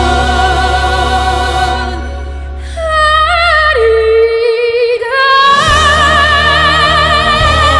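A woman singing in a classical operatic style with wide vibrato, over a recorded accompaniment. The low accompaniment drops out about four seconds in and comes back about a second later, while the voice steps up to a long held note.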